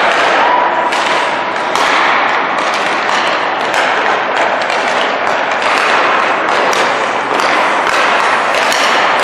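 Ice hockey warm-up: repeated sharp knocks of pucks being shot off sticks and striking the boards, goalie pads and other sticks, over a steady rink hiss.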